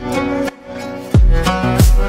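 Background music with a deep beat. The beat drops out about half a second in and returns a little after one second.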